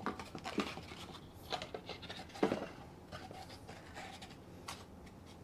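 An 80-grit abrasive sanding belt being fitted by hand over the wheels of a 2x48-inch belt grinder with the motor off: faint rustling and rubbing, with a few light knocks.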